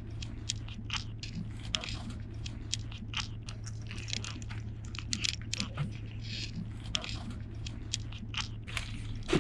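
Kittens crunching and chewing cat food: a rapid, irregular run of crisp crunches over a steady low hum.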